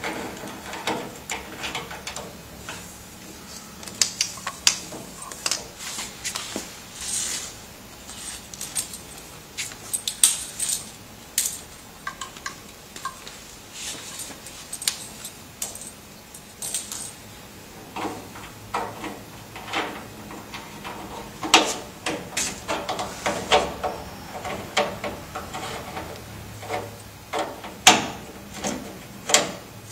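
Irregular clicks, taps and rattles of cable plugs and connectors being handled and pushed into the sockets on the back panel of a laser welding machine.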